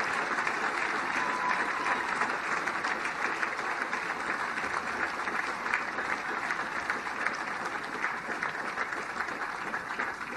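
A large crowd applauding, a dense patter of many hands clapping that slowly fades toward the end.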